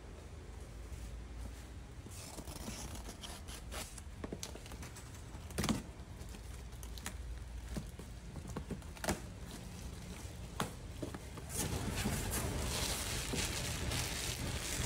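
Handling noise from a cardboard box being opened and unpacked: scattered clicks and knocks, a few sharper ones. In the last few seconds, plastic packaging crinkles steadily and more loudly as wrapped items are pulled out of the box.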